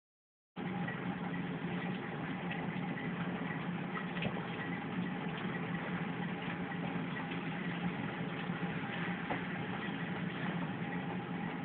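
Hail coming down hard: a steady dense patter with scattered sharp clicks of stones striking, over a steady low hum. It starts abruptly about half a second in.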